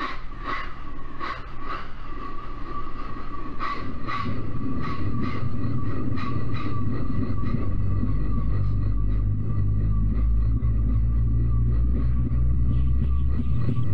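A train on the move, imitated entirely with a human voice: a steady thin whine with sharp clicks through the first half, and a low rumble that builds from about four seconds in and then holds.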